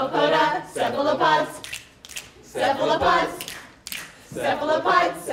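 Several voices singing an unaccompanied song about cephalopods in short phrases, with brief pauses between the lines.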